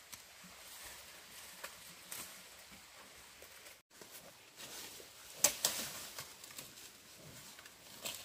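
Rustling and crackling of dry bamboo leaves and stalks, with a cluster of sharp cracks a little past halfway and another crack near the end.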